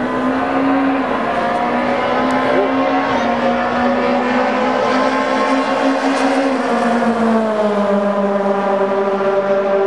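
Single-seater formula race car engine running at high revs as it passes on the circuit, a steady note whose pitch drops about seven seconds in.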